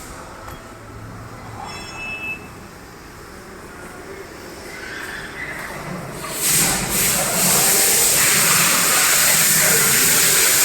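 Loud steady hiss of a high-pressure jet starting about six seconds in, after a few seconds of low workshop background.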